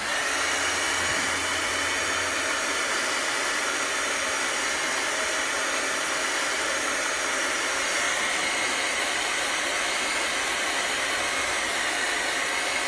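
Hand-held hot-air blower running steadily, switched on right at the start.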